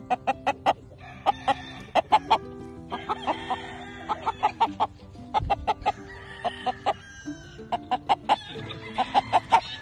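Chickens clucking in quick runs of short notes, over background music with held notes.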